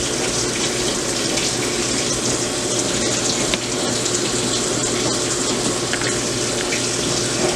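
Washing machine filling with water: a steady rush of water running into the drum, with a faint steady hum underneath.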